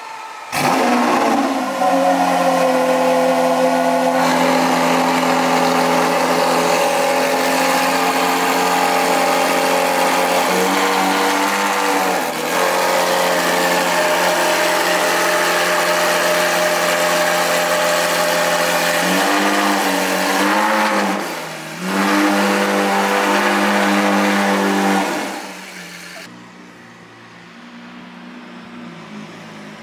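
Lamborghini Aventador SVJ's V12 with a Novitec aftermarket exhaust starting up about half a second in and running at a steady idle, its pitch dipping briefly twice. The loud running stops a few seconds before the end, and a much fainter engine sound follows.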